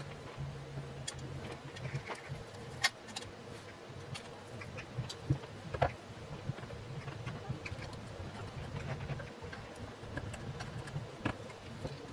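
Scattered small metallic clicks and taps of a screwdriver turning screws and of small parts being handled on a GEC 64d telephone bell set during reassembly, over a low steady hum.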